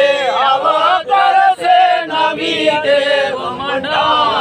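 A group of men singing a devotional song together, drawing out long held notes that bend in pitch.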